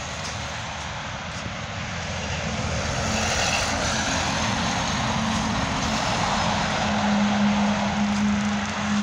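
Heavy lorries approaching and passing: a steady engine hum with rushing tyre noise that grows louder, the hum strongest near the end as a semi-trailer goes by.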